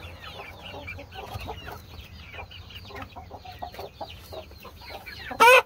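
A flock of chickens clucking with many short, falling chirps; near the end one bird gives a single loud, short squawk.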